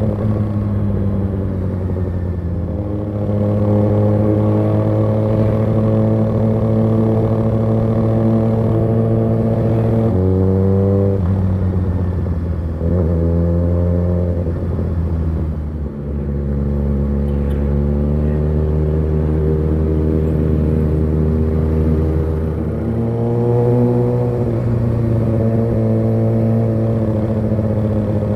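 2019 Kawasaki ZX-6R's inline-four engine running as the bike rides along the road. Its pitch drops about ten seconds in, picks up again, falls to its lowest for several seconds from about sixteen seconds in, and climbs back up near the end.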